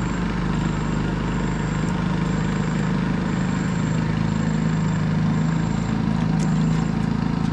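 A small engine running steadily at idle, with an even, unchanging low hum, and a faint high-pitched tone coming and going above it.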